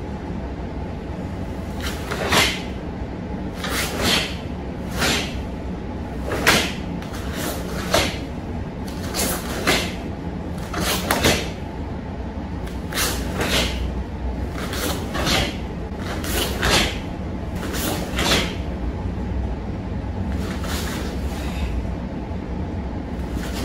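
Karate uniform snapping and swishing with each strike and block of a kata, about twenty times, every second or so and often in quick pairs, over a steady low hum.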